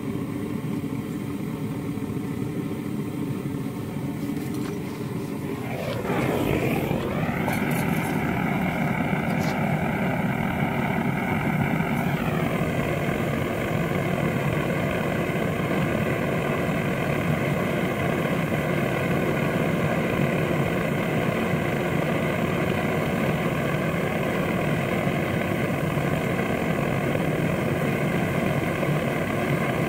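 A motor running steadily with an even hum. About six seconds in its pitch dips, then climbs and settles higher, and it shifts once more at about twelve seconds.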